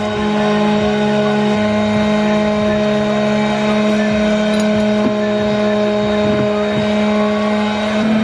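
A high-speed electric power-tool motor running at a constant speed, a steady whine with a fixed pitch. It is switched on abruptly just before and keeps going unchanged throughout.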